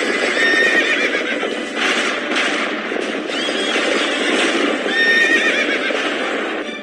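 Horses neighing several times over the dense rumble of a galloping cavalry charge.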